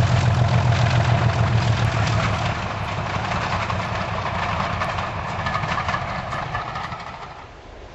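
Class 37 diesel locomotive 37906 hauling coaches past under power: its engine is loud, with a low pulsing note, for the first couple of seconds, then fades as it draws away. The rumble and clatter of the coaches on the track carries on and dies away near the end.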